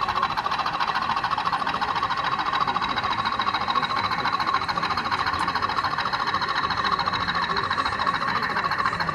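Model train running on layout track: a steady, fast rattling buzz of its small electric motor and wheels on the rails.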